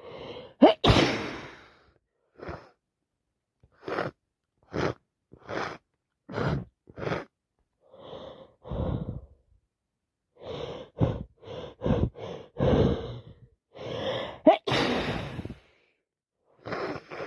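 A woman sneezing from a cold and hay fever: a loud sneeze with a drawn-in breath about a second in and another near the end, with a string of short, sharp gasping breaths between them.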